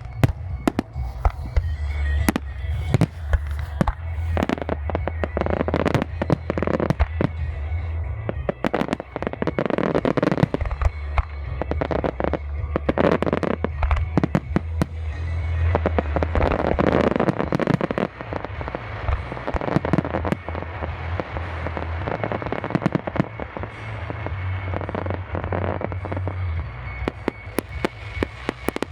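A fireworks display firing without a break: a dense run of bangs, several each second, with music underneath.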